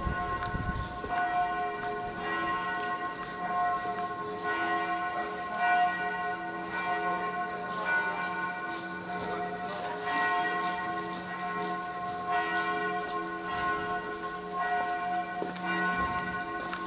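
Several church bells ringing together in a peal, fresh strokes about every second, their tones overlapping and sustained.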